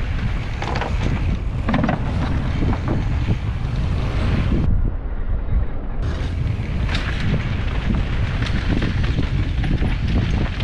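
Wind buffeting the microphone of a mountain bike's rider-mounted camera on a fast downhill run, over a steady rumble of tyres on a dirt trail, with scattered short knocks and rattles from the bike over rough ground.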